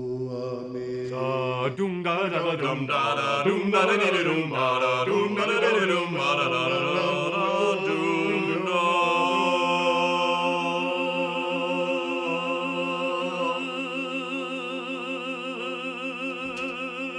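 Men singing without words in a chant-like style: held notes at first, then a run of moving, ornamented notes from about two seconds in, then long held notes with vibrato from about nine seconds in.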